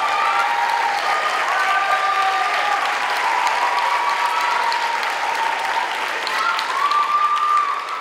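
Audience applauding and cheering after a dance performance, with high held calls and whoops over the clapping; it starts to die away at the very end.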